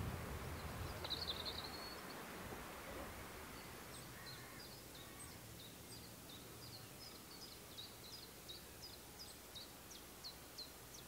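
A small songbird singing: a steady run of short, high chirps at a few a second, after a brief chirping flurry about a second in. Faint outdoor background noise underneath, a little louder in the first two seconds.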